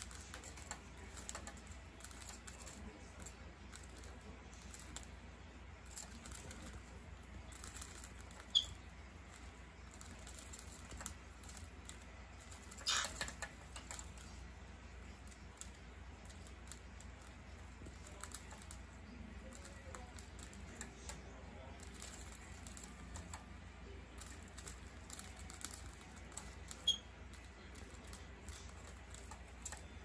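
Two cockatiels squabbling: a run of light clicks and taps from beaks clacking and feet scuffling on a wooden board, with a louder flurry about thirteen seconds in. Two short, sharp chirps stand out, one about a third of the way through and one near the end.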